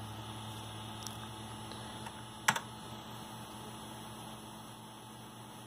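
A single sharp keystroke click on a computer keyboard about two and a half seconds in, with a fainter tap near one second, over a steady low electrical hum.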